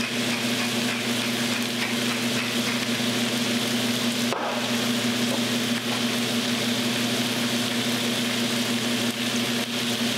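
Onions, fennel and butternut squash sizzling steadily in chicken fat in a skillet, with a steady low hum underneath.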